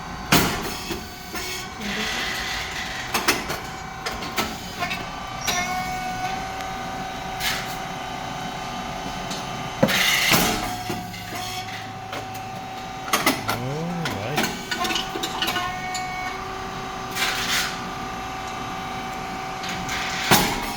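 Puffed rice cake machine running its production cycle. About every ten seconds (three times) comes a sharp pop with a burst of hiss as the heated moulds open and the rice cakes puff. In between, the hydraulic pump runs with a steady whine, and the feed plate and valves click and clunk.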